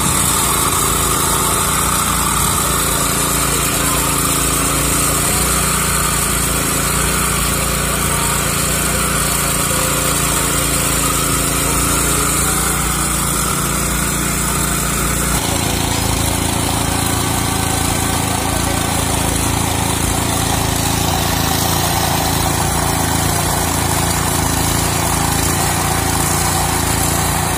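Petrol-engined abrasive rail cutter running steadily at full speed, its disc grinding through a steel rail. The sound shifts abruptly about halfway through.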